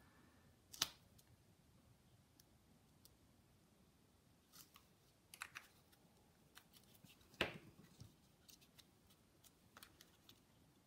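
Near-quiet room with sparse, short clicks and taps from paper-crafting materials being handled at a table. The two loudest come about a second in and about seven and a half seconds in.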